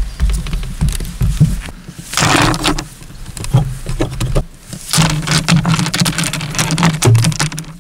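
Loose rocks handled on a platform of round wooden poles: low thumps, then a short clatter of stones tipped onto the poles about two seconds in. From about five seconds come repeated sharp clacks of stone knocking on stone as they are stacked by hand.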